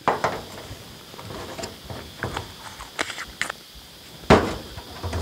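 Small clicks, taps and knocks of a syringe and small lure bottles being handled and capped, with the sharpest knock about four seconds in.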